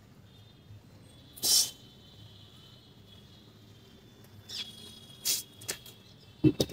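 Forceful hissing exhales of a man pressing dumbbells overhead, picked up close by a clip-on mic: one loud breath about a second and a half in and a few shorter ones later. A couple of dull knocks near the end as the set finishes.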